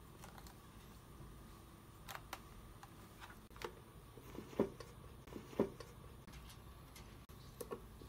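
Scattered small plastic clicks and taps from a video doorbell's case and back plate being handled, with two louder knocks about a second apart near the middle.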